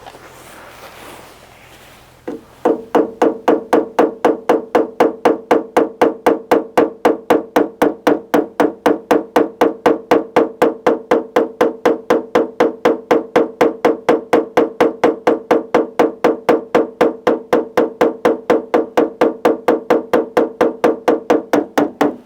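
Rapid, even tapping of a tap-down tool and hammer on the car's steel quarter panel, about four taps a second, each with a short metallic ring, as a dent's raised edges are knocked down. It starts about two seconds in and stops just before the end.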